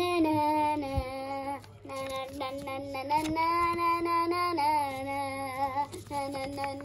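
A child singing in long held notes, the voice wavering slightly, with a few short breaks between phrases.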